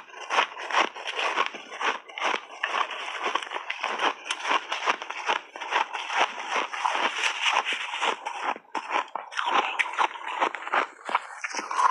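Frozen ice balls with mixed berries being bitten and chewed: a dense, continuous run of sharp crunches and crackles.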